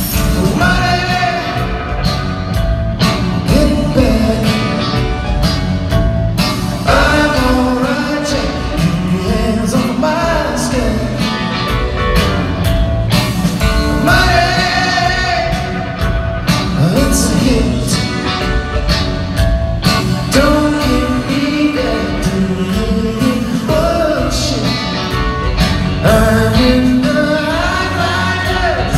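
Live rock band playing a song with a sung lead vocal over a heavy bass and drum backing, amplified in a large arena.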